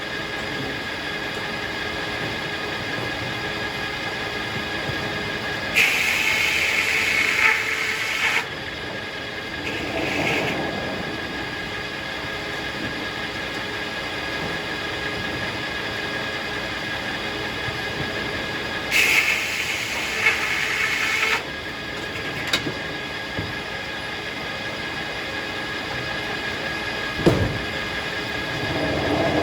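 Circular sawmill running steadily with a constant high whine, its blade sawing through a hackberry log twice, each cut a louder hissing stretch of about two and a half seconds. A sharp knock comes near the end.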